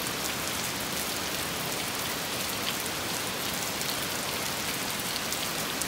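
Heavy downpour: a steady hiss of rain falling on trees, with scattered faint ticks of single drops.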